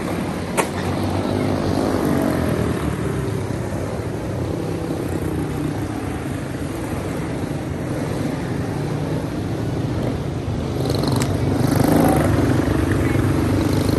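Several quarter midget race cars with single-cylinder Briggs & Stratton Animal engines running together on the track, a steady buzzing drone that grows louder near the end as cars pass close. A sharp click about half a second in.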